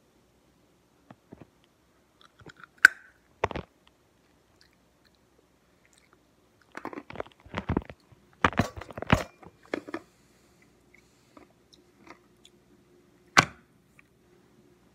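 A small ice cube being bitten and crunched in the mouth: a few sharp crunches, a dense run of crunching in the middle, and one more sharp crunch near the end.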